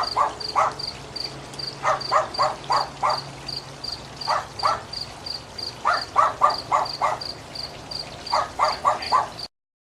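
A cricket chirping steadily at a high pitch, about two to three chirps a second, while frogs call in short runs of three to five croaks every couple of seconds. The sound cuts off suddenly near the end.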